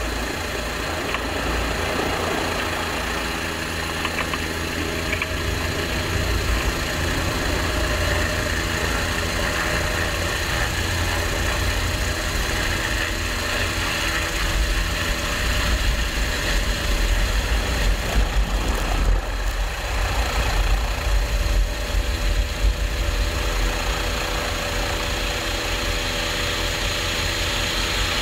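Military helicopter's rotor and turbine engines heard from on board: a steady, loud beating rotor with an engine whine. It grows louder and more uneven around the middle as the helicopter lifts off from the pad.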